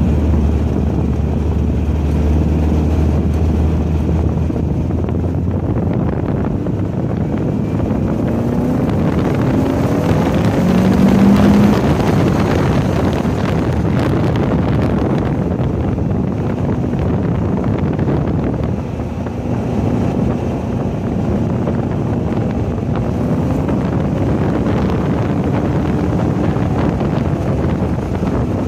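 A Volkswagen's engine running hard on a racetrack, heard with heavy wind rushing over the microphone. The engine note climbs and is loudest around ten to twelve seconds in.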